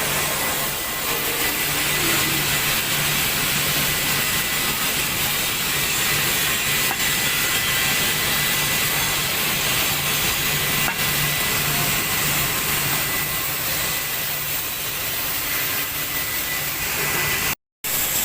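Steady hissing machine noise over a low hum, with a faint steady whistle. It drops out completely for a moment near the end.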